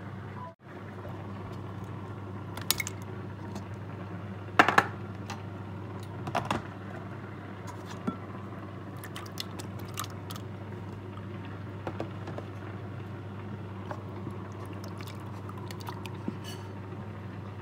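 Plastic tubs and a metal spoon clinking and knocking against a glass bowl as jelly cubes are tipped in: scattered sharp clatters, loudest about five seconds in, over a steady low hum.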